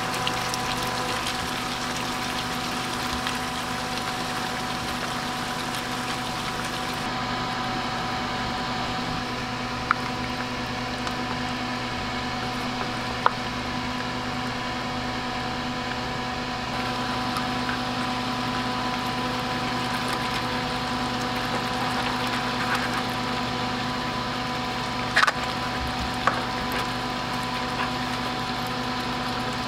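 Pork kaldereta sauce simmering and sizzling in a frying pan while a wooden spatula stirs the meat and vegetables, with a few sharp clicks of the spatula against the pan. A steady hum runs underneath.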